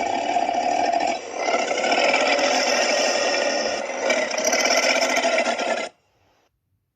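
Tyrannosaurus roar sound effect: a long, harsh, rasping growl in three drawn-out phrases that cuts off suddenly about six seconds in.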